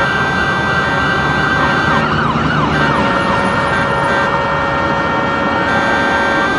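Street traffic rumbling under several steady horn tones held throughout. An emergency-vehicle siren yelps in quick falling sweeps from about one and a half to three seconds in.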